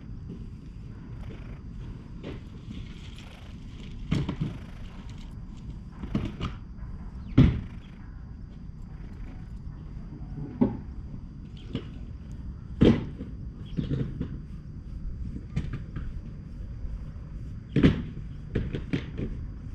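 Tabby cat purring as it is stroked, a steady low rumble under irregular rubbing and knocking where fur and a hand brush the microphone up close.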